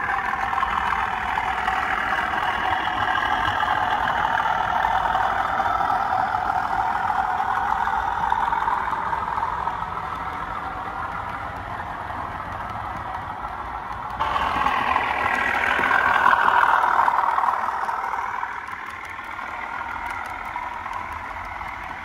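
OO gauge model trains running on the layout: a steady mechanical running noise. It changes suddenly about 14 seconds in, swells, then fades.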